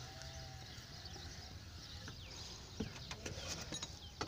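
Faint chirps of birds in the background, joined in the second half by a run of light metallic clicks and clinks from hand tools being handled around the car's jack.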